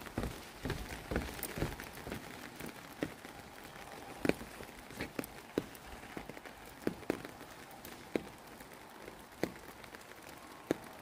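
Light rain falling: a steady hiss with irregular close taps of drops. Footsteps on the wet boardwalk are heard in the first couple of seconds.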